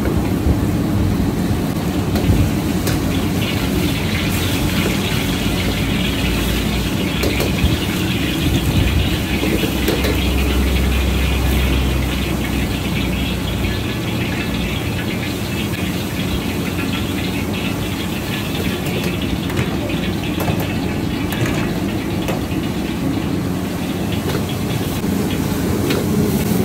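Steady background din of street traffic and engines, with a hiss through the first half and a deeper rumble swelling about ten seconds in.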